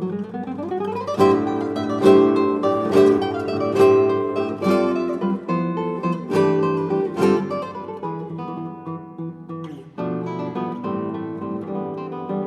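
Background music: an acoustic guitar playing strummed and plucked chords, with a short break about ten seconds in before it carries on.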